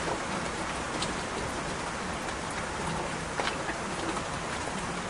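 Steady rain falling, with a few sharper drops standing out now and then.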